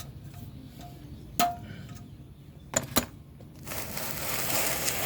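Metal tools or parts clinking three times, a single clink then two close together, followed by a steady hiss or rustle lasting a couple of seconds near the end.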